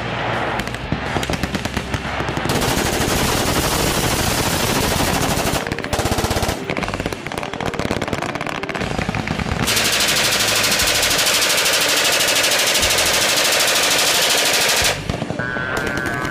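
Machine guns firing long runs of rapid automatic fire, with a brief break about six seconds in. The longest, densest stretch of fire stops abruptly about fifteen seconds in.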